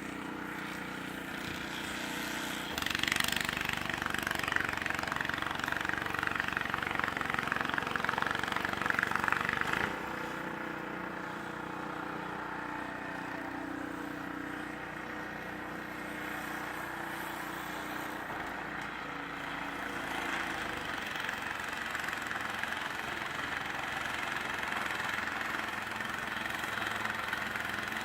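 An engine running steadily, getting louder with added rushing noise for several seconds starting about three seconds in, then settling back.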